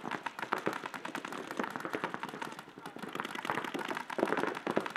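Paintball markers firing rapid strings of shots, many pops a second without a break.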